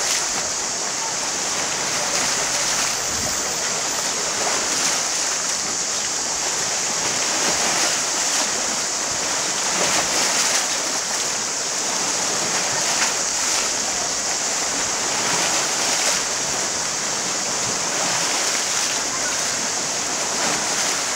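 Small waves washing gently on a pebble beach, under a steady high-pitched hiss.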